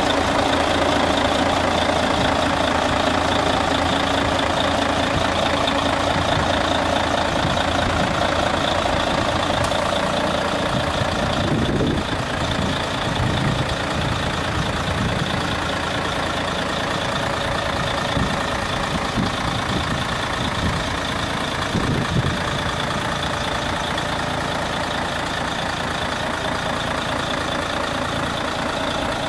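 Mercedes-Benz Actros 1846 tractor unit's diesel engine idling steadily. Irregular low buffeting on the microphone comes through the middle stretch.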